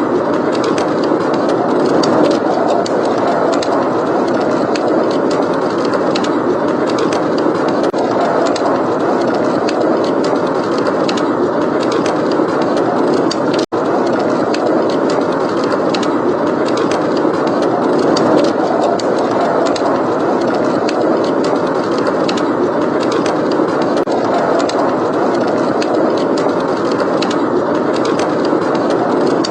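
Blizzard wind blowing steadily with a wood fire crackling: a constant rushing wind under frequent small crackles and pops. The sound cuts out for a split second about halfway through.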